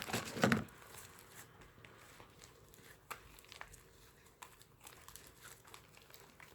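Fluffy shaving-cream slime being kneaded by hand, giving faint, scattered crackles and squishes, with a louder squish in the first half second.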